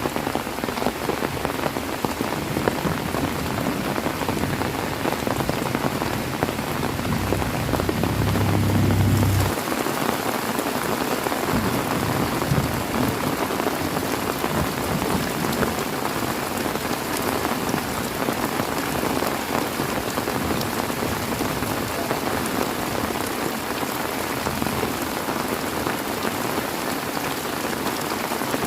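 Heavy rain falling steadily onto a surface, a dense even hiss of drops. About seven seconds in a low rumble swells under it and cuts off abruptly at about nine and a half seconds.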